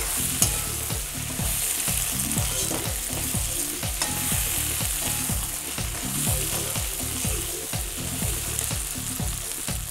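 Steel ladle stirring and scraping diced potatoes around a kadai in repeated strokes, over a steady sizzle of the potatoes frying in oil.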